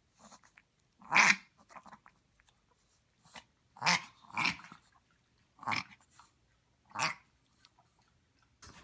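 Dog coughing and snorting in about five short bursts spaced a second or so apart, the loudest about a second in, with fainter snuffles between.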